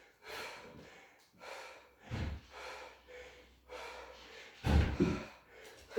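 A man breathing hard, short gasping breaths in and out, winded from a set of burpees. Two dull thumps stand out, about two seconds in and near five seconds.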